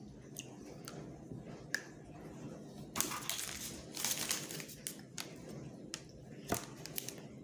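Crinkling of a MrBeast Deez Nutz chocolate bar wrapper being handled and crumpled, in two louder bursts about three and four seconds in, with a few sharp clicks.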